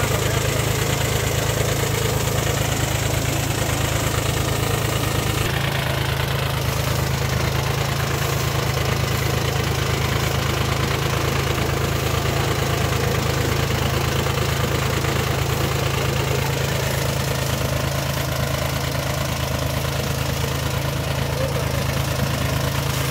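VST Mitsubishi Shakti mini tractor's small diesel engine running steadily at an even, unchanging engine speed.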